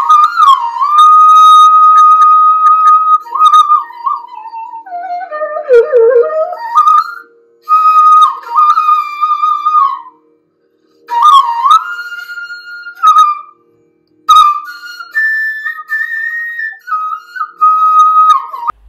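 Background music: a solo flute melody with bends and slides, in phrases broken by short pauses, over a faint low drone.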